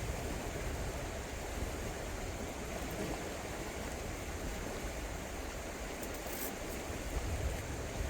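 Steady rush of the Shenandoah River's current flowing past.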